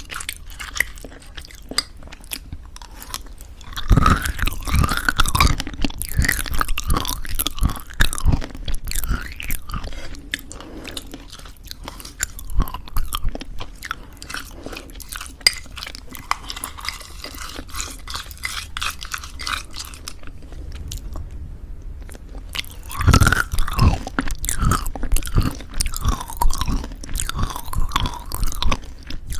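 Close-miked chewing of crunchy homemade granola in thick yogurt: irregular crisp crunches and wet mouth sounds, louder bites about 4 seconds in and again about 23 seconds in.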